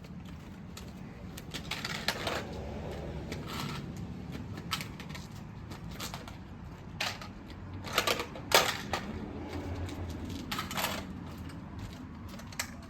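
Irregular plastic clicks and clatter from a toy foam-dart blaster being handled and loaded, with a few louder sharp clacks about two-thirds of the way through.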